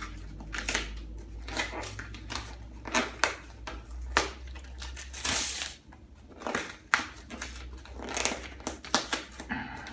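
Cardboard record mailer being wrestled open by hand: irregular crunching, crinkling and scraping of the packaging, with a longer rip about five seconds in.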